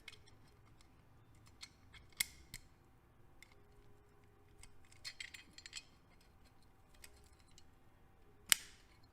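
Faint scattered clicks and taps of metal engine parts being handled as a spring-loaded cam chain tensioner is fitted, with a sharper click about two seconds in and one loud sharp click near the end.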